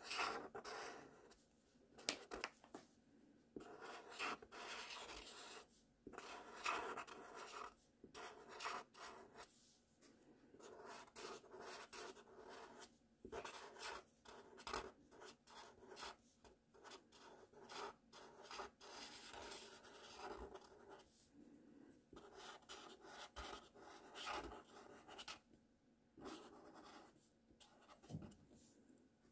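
Felt-tip marker rubbing and scratching across paper, writing cursive letters: faint, in a run of short strokes with brief pauses between them.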